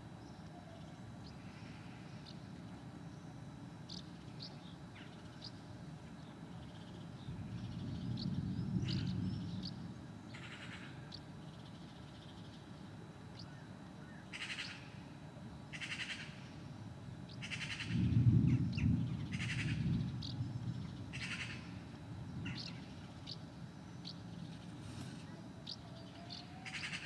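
Birds chirping, with a run of harsher calls repeating every second or two through the middle of the stretch. A low rumble of distant thunder from the storm swells and fades twice: a weaker one about eight seconds in, and the loudest one about eighteen seconds in.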